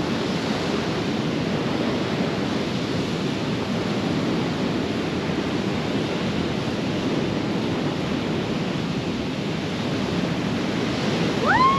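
Steady wash of ocean surf mixed with wind buffeting the microphone, an even, unbroken rush.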